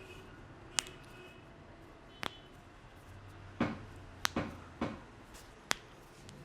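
Sharp cracks and slaps from a barber's hands during an Indian head massage, about seven separate strikes, three fuller, slap-like ones coming close together a little past the middle.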